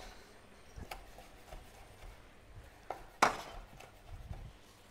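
Kitchen knife cutting green grapes on a wooden cutting board: a few sparse, faint taps of the blade on the board, with a sharper knock about three seconds in.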